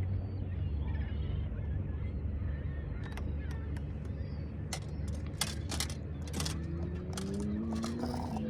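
A boat motor running with a steady low rumble, its pitch slowly rising over the last two seconds. Sharp clicks come in a scattered run through the middle.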